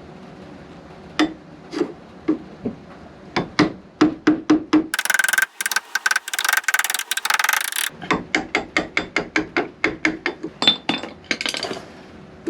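Hammer striking a wood chisel to cut the latch recess into a door's edge: scattered taps, then a run of blows about three a second. Near the middle there are about three seconds of dense, high rasping.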